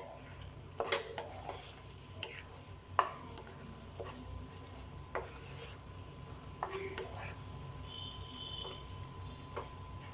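A spoon stirring mashed smoked brinjal into onion-tomato masala in a pan, with irregular knocks and scrapes of the spoon against the pan over a faint sizzle.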